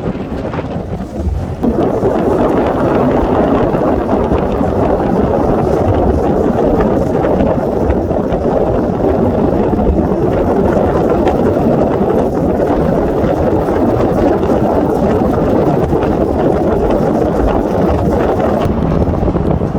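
Wind rumbling on the microphone aboard a moving boat, joined about two seconds in by a steady rushing noise that holds to the end.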